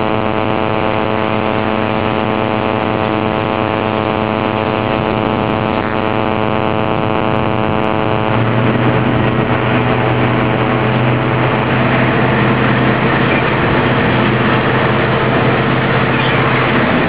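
Heavy vehicle engine running steadily at idle. About halfway through the sound changes to a stronger, deeper hum.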